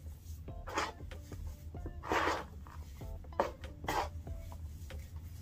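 Dry plant stalks and crisp dead leaves rustling and crackling as they are handled in a plastic tub, in a few short bursts, the loudest about two seconds in. Faint background music plays underneath.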